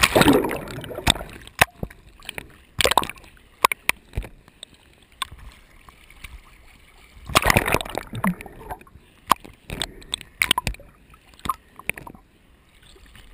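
Water sloshing and splashing against a camera held at the surface in shallow surf, with gurgling as it dips under and back out, and many sharp knocks. The loudest splashes come at the start and about seven seconds in.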